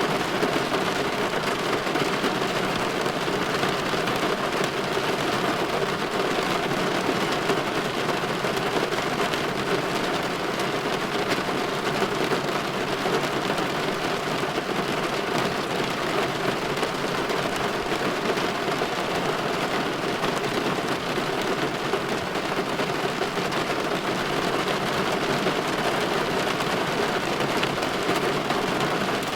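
Steady rain falling against a window pane, an even wash of drops that holds constant throughout, with no distinct thunderclaps.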